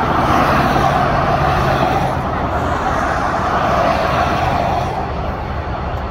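Interstate traffic of cars, pickups and tractor-trailers driving past: a steady rush of tyre and engine noise with a low engine hum underneath. It is louder through the first few seconds and eases slightly near the end.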